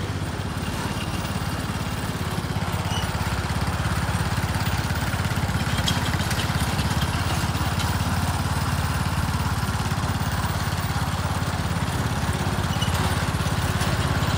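Riding lawn mower's engine running steadily as the mower drives across the lawn, getting somewhat louder over the first few seconds.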